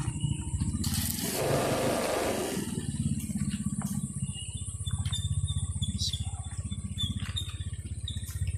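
Motorcycle engine running at low revs with a steady pulsing beat, and a brief rush of noise about a second in.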